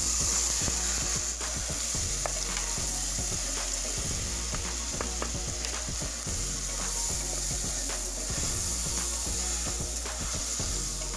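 Washed rice sizzling as it fries in a hot pot with browned vermicelli, stirred with a wooden spoon that scrapes and knocks against the pot.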